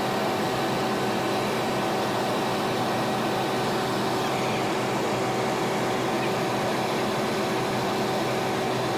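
A steady, even hiss with a few faint, constant hum tones, unchanging throughout.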